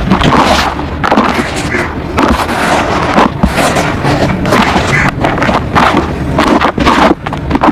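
Wet red dirt mud paste being squished and mixed by hand, giving loud, irregular crackly squelches about two or three a second.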